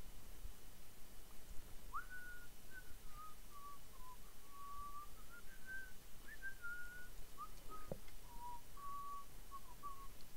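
A person whistling a wandering tune, a single pure line of notes that steps and slides up and down, starting about two seconds in. One sharp click about two-thirds of the way through.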